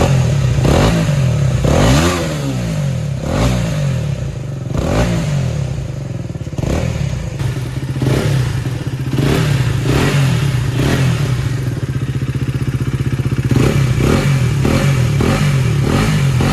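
KTM Duke 250's single-cylinder engine idling through its stock exhaust with the dB killer removed, revved again and again in short throttle blips that rise and fall back to idle.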